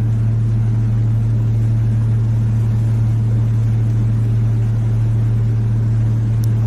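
Steady low drone of a warship's engines and machinery heard from its deck: one deep, unchanging hum with a fainter tone above it.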